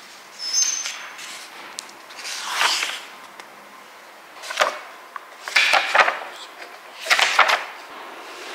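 Pages of a textbook being turned by hand: about five short paper rustles and flips, one every second or two.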